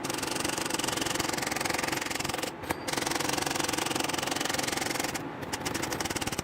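Keys of a 1937 L C Smith & Corona manual typewriter struck one after another in fast-forward: a rapid, continuous clatter of typebars, broken by two short pauses about two and a half and five seconds in.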